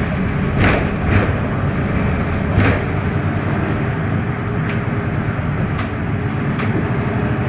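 Inside the cabin of a VDL Citea 12m city bus: the engine runs steadily with a low hum. A few short knocks or rattles come through, about a second in, at two and a half seconds, and near the end.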